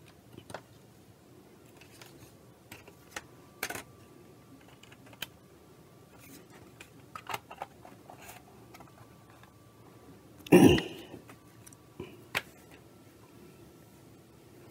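Small plastic clicks and rattles as an electronic controller's circuit board is handled and fitted back into its black plastic case, with one louder knock about ten and a half seconds in.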